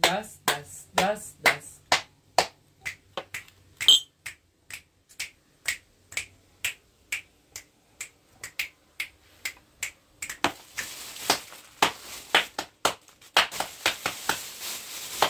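Steady rhythmic knocking: sharp strikes about two a second, with a brief high ping about four seconds in; the strikes grow louder from about ten seconds on.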